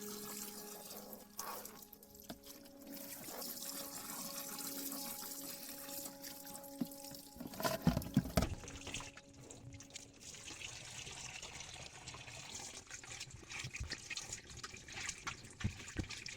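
Water running into a Samsung washing machine's tub as it fills for a test run after repair, with a brief cluster of loud knocks about eight seconds in.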